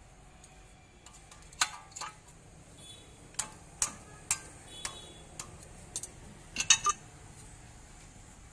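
Sharp metallic clicks and clinks of tools and steel parts being handled at a car's front steering knuckle, brake disc and ball joint: about a dozen irregular strikes, with a quick cluster of the loudest ones about two-thirds of the way through.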